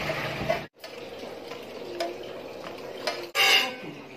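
Metal kitchen utensils clinking against pots and pans: a few light taps, then a louder clatter about three and a half seconds in.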